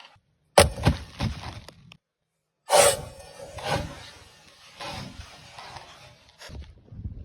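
A vacuum cleaner being smashed with hand tools: heavy blows that crack and break it apart. A quick run of strikes comes about half a second in, then after a short gap one loud blow near three seconds, followed by a few weaker hits and rattling debris.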